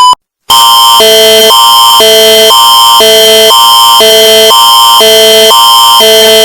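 Canadian emergency alert attention signal: a loud electronic alarm that switches every half second between a higher and a lower chord, with a steady high tone running through it. A brief beep ends just at the start, and the alarm begins about half a second in.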